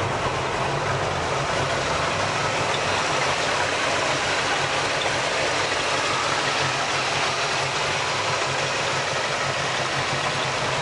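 Cammed-up V8 car engine idling steadily through new mufflers, its low exhaust note pulsing evenly.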